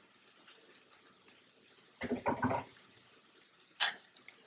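Wooden spoon knocking against a stainless steel sauté pan: a short cluster of knocks about two seconds in, then one sharp click near the end.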